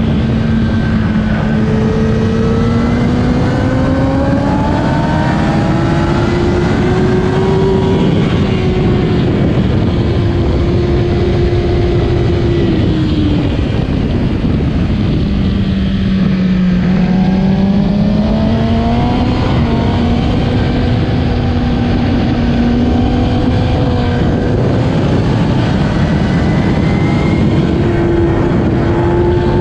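2008 Kawasaki ZX-10R's inline-four engine at race pace: the pitch climbs steadily for the first half, falls sharply about halfway through, then climbs again and holds high, over a constant rush of noise.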